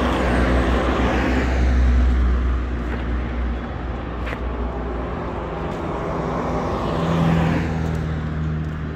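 Road traffic: a minibus passes close by in the first few seconds, its engine rumble and tyre noise swelling and fading, then another vehicle goes by about seven seconds in with a steady engine hum.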